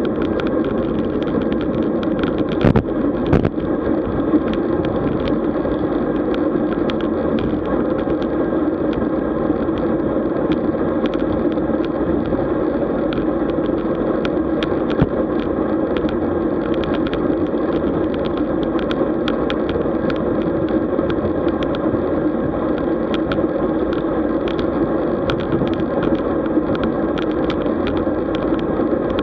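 Steady wind and road noise from a road bike on the move, with frequent small ticks and rattles and a few louder knocks about three seconds in.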